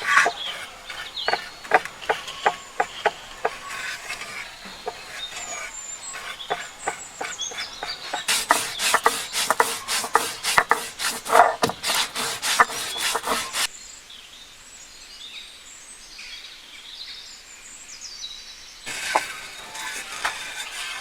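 Hand food preparation: a run of sharp knocks about two or three a second, then several seconds of fast, even scraping strokes, about four a second, that stop abruptly. Birds call in the background.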